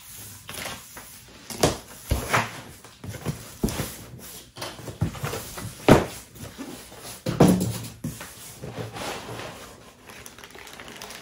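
Cardboard shipping box opened by hand: flaps scraping and knocking, then the packing foam and plastic-wrapped contents handled. There are several sharp knocks, the loudest about six seconds in, over a quieter rustling.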